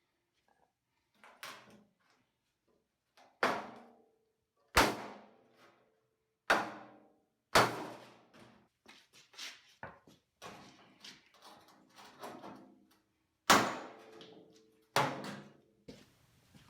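Irregular blows on a 1960 Pontiac Ventura's steel front fender, about eight sharp knocks and several lighter taps, each with a short metallic ring from the panel: bodywork to raise a low spot in the fender.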